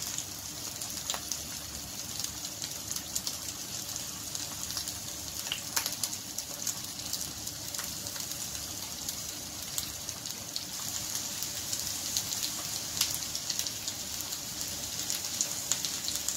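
Battered chicken pieces shallow-frying in hot oil: a steady sizzle with scattered crackles and pops, getting a little louder about two-thirds of the way through as more pieces go into the pan.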